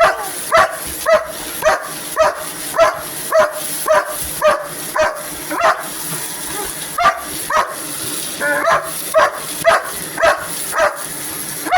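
Dog barking over and over at a vacuum cleaner, about two barks a second with a brief pause midway, over the vacuum's steady hiss.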